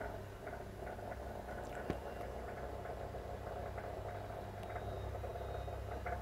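Electrically heated boiler of a model steam boat under test: irregular small ticks and crackles, as of water starting to boil, over a steady hum, with one sharp knock about two seconds in.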